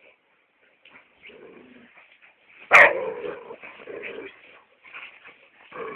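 Labrador retriever yipping and whimpering in short broken sounds, with a sudden loud bang a little under three seconds in.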